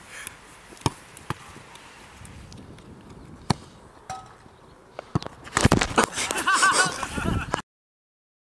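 Football being kicked on artificial turf: several sharp thuds of the ball being struck and hitting the goalkeeper, spread over a few seconds. A louder jumbled stretch of noise follows near the end, then the sound cuts off suddenly.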